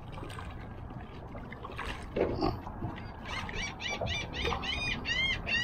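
A rapid series of high-pitched animal calls, about five a second, starting a little past halfway; the last few notes are longer, each rising and then falling in pitch.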